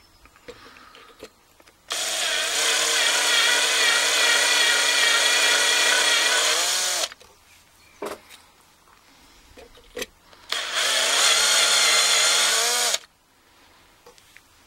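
Electric drill with a 4 mm bit drilling out a padlock's retaining rivet, in two runs: one of about five seconds and a shorter one of two to three seconds near the end. Each run winds down in pitch as the trigger is let go. There are a few small clicks between the runs.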